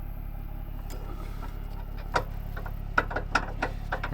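Metal recovery rigging hardware being handled: a few sharp clinks and knocks from about a second in, over a steady low engine idle.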